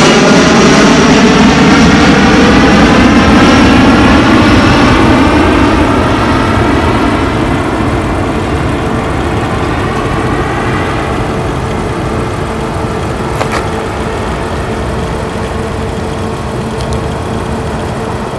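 Airbus A319 jet engines at takeoff thrust, a loud roar with a swirling, sweeping tone as the airliner passes. After about five seconds it fades steadily as the plane climbs away.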